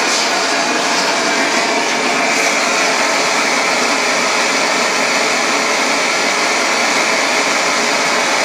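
Hand-held LPG gas torch burning with a steady, continuous rushing hiss. Its flame is heating a copper boiler toward red heat for silver soldering.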